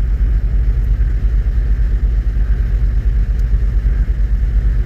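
A loud, steady low rumble that flutters rapidly in level, with a faint hiss above it.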